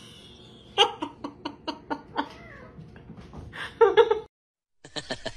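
Domestic cat giving a quick run of short meows, then a louder, longer meow near the end.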